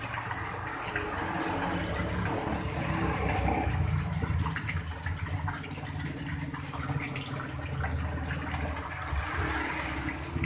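Small garden waterfall: water pouring from a spout in an artificial rock wall and splashing into a fish pond, a steady rushing splash, with a low rumble underneath.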